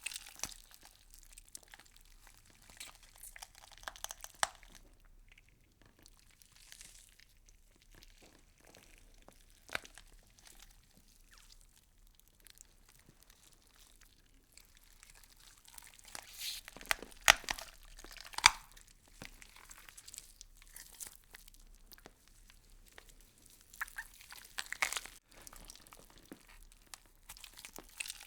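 Insects chewing through leaves: scattered crisp crunches and crackles over a quiet background, with louder clusters about sixteen to nineteen seconds in and again around twenty-five seconds in.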